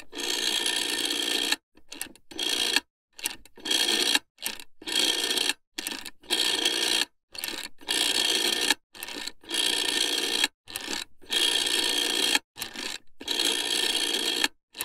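Rotary telephone dial wound round and let spin back, over and over as a number is dialled: a string of short whirring, clicking runs of differing lengths, with brief silences between them.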